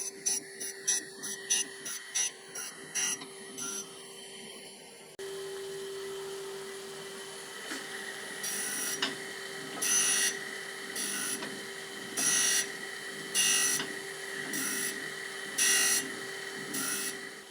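Machine tool running with a steady hum during a light finishing pass on a metal part. Quick clicks come first. Then, after an abrupt change about five seconds in, short scraping strokes come roughly once a second.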